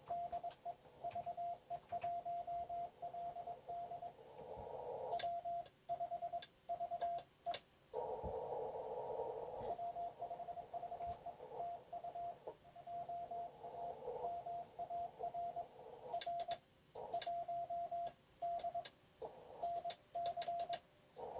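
Morse code (CW) on a shortwave amateur radio: a steady tone near 700 Hz keyed in dots and dashes as a contact exchange is sent and received. Band hiss comes up through the receiver's narrow CW filter between passages, and a few sharp clicks sound.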